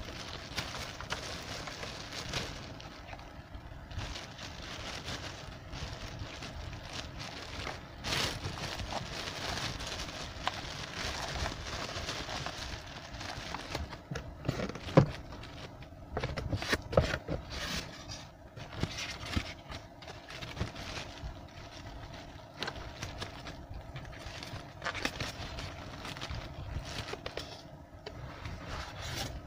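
Clear plastic bag crinkling and rustling as a small sewing machine wrapped in it is handled and packed into a cardboard box, with scattered knocks, the sharpest about halfway through.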